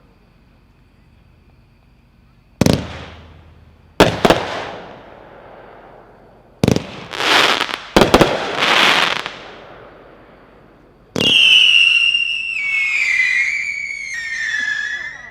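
Heavyweight Top Rope firework cake firing its shots: a series of sharp bangs, each followed by a hissing, crackling tail. About 11 seconds in comes a long whistle that slides slowly down in pitch for about four seconds.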